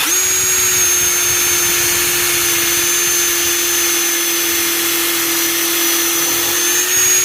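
Bauer 20-volt cordless impact driver spinning freely at full speed with no load, a steady motor whine with no hammering, cutting off suddenly near the end.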